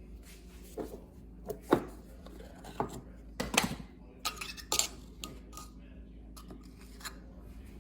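Measuring spoons and kitchen utensils clinking and tapping against bowls and containers while baking ingredients are measured out: a scattered run of sharp clinks, about ten, loudest a little under two seconds in and again between three and a half and five seconds.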